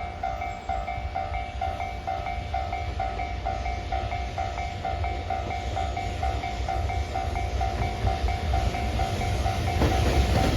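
Japanese level-crossing alarm bell ringing, its electronic dings repeating about two and a half times a second, over the low rumble of an approaching freight train led by an EH200 electric locomotive. The rumble grows louder near the end.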